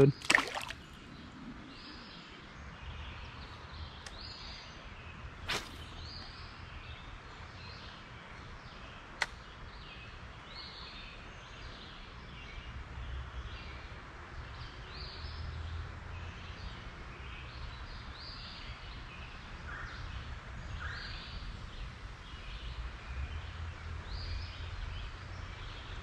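A small splash at the very start as a released sunfish drops back into the creek, then steady creek-side ambience: small birds chirping about once a second over a low rumble, with two sharp clicks early on.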